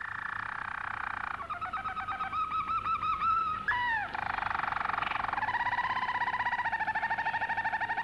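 Canary singing: runs of quick, repeated rolling notes, a short downward-slurred note a little before halfway, then a long, fast, even trill through the rest.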